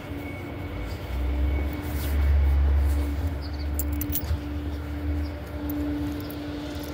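Peterbilt garbage truck with a New Way body running: a steady heavy diesel rumble with a constant hum over it. The rumble swells about a second in and eases after about three seconds. A few light clicks come about four seconds in.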